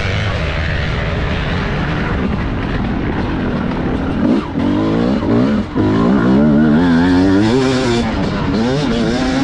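TM Racing 250 motocross bike's engine, revved up and down under throttle changes and gear shifts, its pitch rising and falling repeatedly from about four seconds in, with two brief dips where the throttle is chopped. A steady wind rush on the onboard camera runs underneath.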